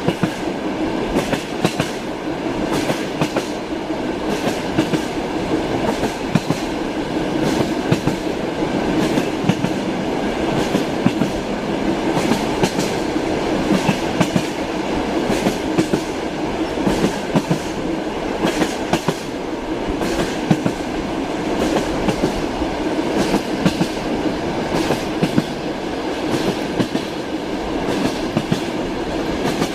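Train running along the track: a steady rolling rumble with frequent sharp clacks of the wheels over rail joints.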